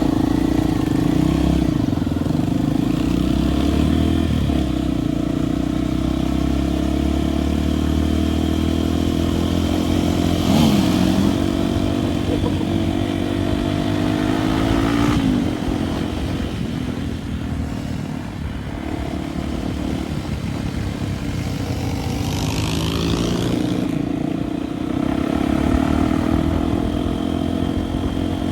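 Honda Tornado 293's single-cylinder four-stroke engine running on a dirt ride, its revs rising and falling several times through gear changes, with a light rattling clatter.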